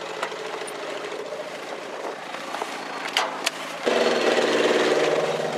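An engine idling low and steady, with two sharp clicks a little after three seconds in. Near four seconds in, a much louder custom motorcycle engine comes in suddenly and idles steadily.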